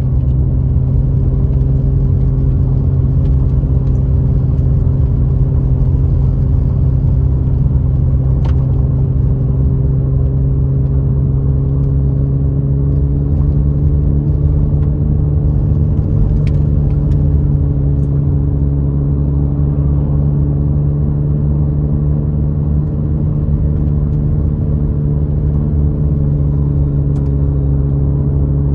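Car engine and road noise heard from inside the cabin while driving at a steady speed: a continuous low hum whose pitch rises slightly about halfway through, then holds.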